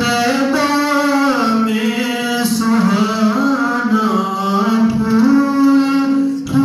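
A man's solo voice singing an Islamic devotional chant, slow and melismatic, holding long notes that slide and waver between pitches.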